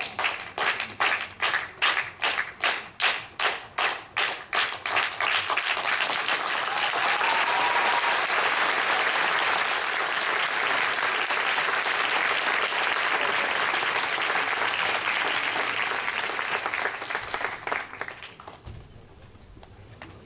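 Sharp strikes in a steady beat, about two and a half a second, give way after about five seconds to an audience applauding; the applause holds steady, then dies away near the end.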